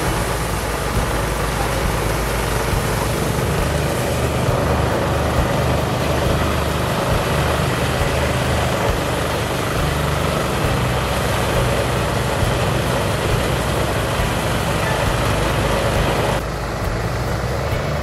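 Engine-driven rice thresher running steadily under load as rice stalks are fed into it: a continuous low engine drone under a dense mechanical whir. About a second and a half before the end the sound turns duller and slightly quieter.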